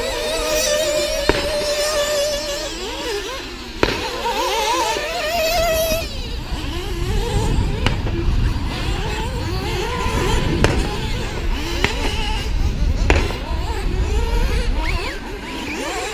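Radio-controlled off-road race cars running on the track, their motors whining up and down in pitch as they accelerate and brake. Several sharp knocks come through, and there is a low rumble of wind on the microphone through the middle.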